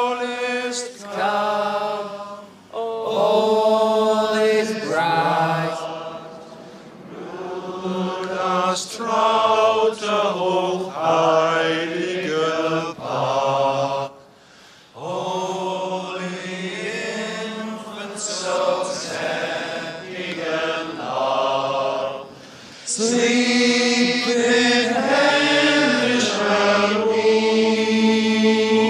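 Men singing a slow Christmas carol in long held phrases, with short breaks between the lines.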